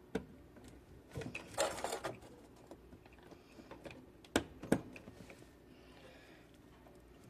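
Wiring connectors being pushed onto a washing machine's control board: scattered plastic clicks and rustling, a short scraping rustle about one and a half seconds in, and two sharp clicks around the middle.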